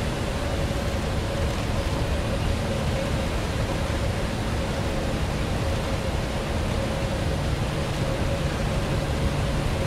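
Automated facade-cleaning machines running on the glass tower: a steady motor drone with a constant whine over a low rumble.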